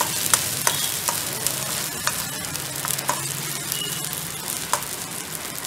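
Chopped onions sizzling in hot oil in a steel kadai, stirred with a slotted steel spatula that scrapes and clicks against the pan every so often. The sizzle eases off gradually.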